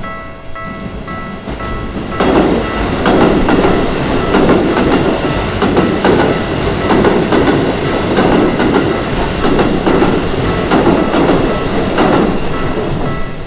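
Keisei Main Line train passing over a level crossing from about two seconds in, its wheels clacking over the rail joints in a steady rhythm and easing off near the end. Before the train arrives, the crossing's warning bell dings repeatedly.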